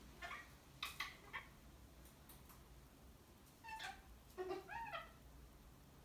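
Pet parrots giving short, quiet calls: a few near the start and around a second in, then a longer wavering series about four to five seconds in.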